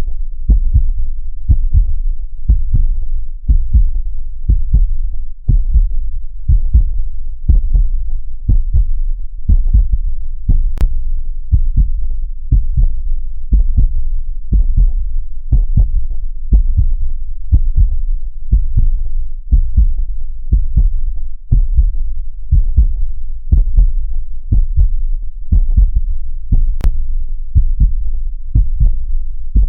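Heartbeat sound: a steady lub-dub rhythm of low, dull thumps in pairs, meant to mimic a heartbeat as heard from inside the womb.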